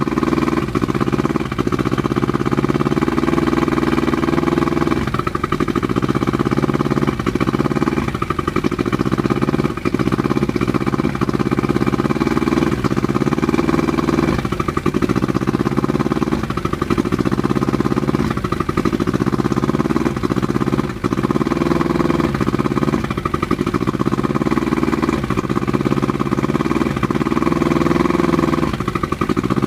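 1988 Johnson 88 hp V4 two-stroke outboard motor idling unevenly, sputtering and coughing with a brief stumble every second or two. This is the sign of carburetors that haven't been cleaned in a few years.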